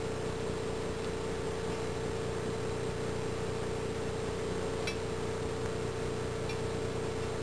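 A steady hum with one held mid-low tone over a faint, even hiss, unchanging throughout, with a couple of faint ticks near the end.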